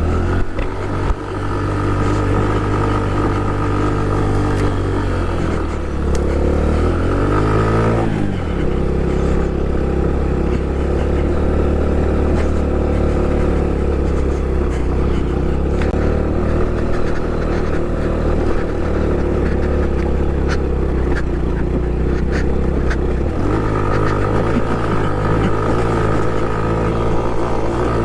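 Honda Pop 110i's small single-cylinder four-stroke engine running under way as the motorcycle is ridden. The revs climb for a couple of seconds and drop sharply about eight seconds in. The engine then runs steadily at lower revs until a step up in pitch near the end.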